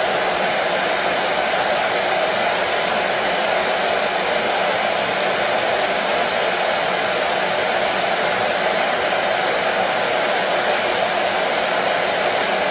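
Washing machine running with a steady, even whooshing noise that does not change.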